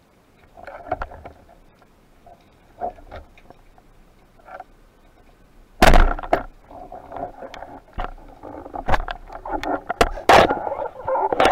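Underwater recording of a speargun firing: a single sharp crack about six seconds in. Light clicks and knocks come before it, and a clattering run of knocks and rattles follows, with two more sharp strikes near the end.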